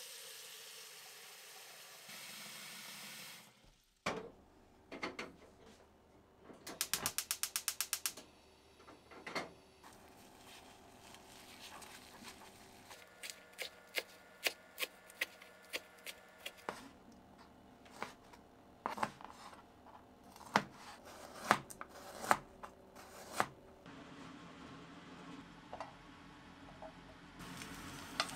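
Kitchen preparation sounds: scattered clicks and knocks of utensils, dishes and containers being handled. There is a steady hiss for the first few seconds and a quick run of about a dozen clicks around seven seconds in.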